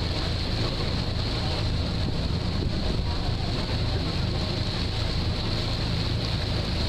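Passenger ferry under way: its engine running with a steady low drone, and the wake water churning behind it, with wind buffeting the microphone.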